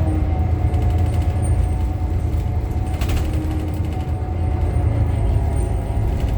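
Cabin sound of a 2018 New Flyer XDE60 diesel-electric hybrid articulated bus under way: a steady low rumble with faint whining tones that come and go. There is a short rattle about three seconds in.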